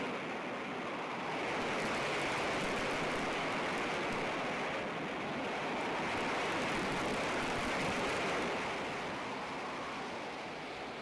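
Steady rushing noise of storm wind and heavy seas on an old film soundtrack, swelling and easing slowly.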